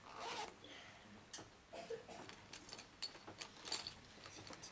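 Quiet classroom with pencils writing and tapping on paper, making scattered small clicks and rustles.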